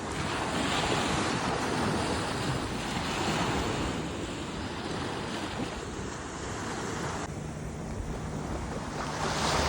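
Waves washing in, with wind rushing on the microphone: a steady rushing noise that swells and eases.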